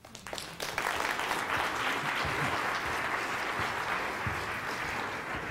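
Audience applauding at the end of a talk, building up within the first second into steady clapping that begins to fade near the end.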